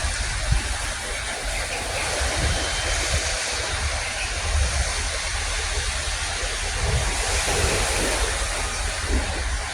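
Wind buffeting the microphone in uneven low gusts over a steady rushing noise.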